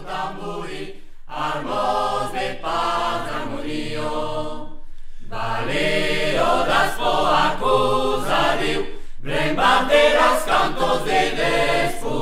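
Unaccompanied choir singing in several voices, in phrases of a few seconds with short breaks between them.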